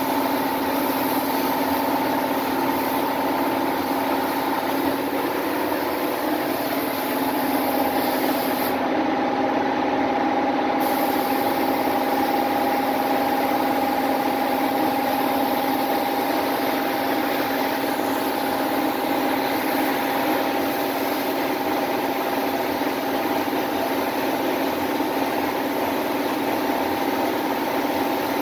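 Compressed-air paint spray gun hissing steadily as it sprays basecoat, over a steady machine hum. The highest part of the hiss drops out for about two seconds about nine seconds in.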